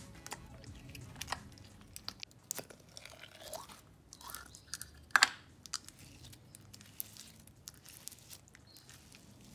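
Small wet clicks and squelches of runny clear slime being stirred with a finger in a glass jar and then pulled and stretched by hand, as borax activator thickens the liquid slime. A sharp click about five seconds in is the loudest sound.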